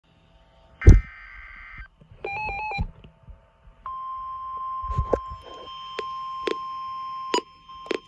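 NOAA Weather Radio receiver sounding a severe thunderstorm warning. About a second in comes a loud click and a one-second screech of SAME digital header data, then a short stepped electronic beep. From about four seconds the steady 1050-hertz warning alarm tone plays, with several sharp clicks over it.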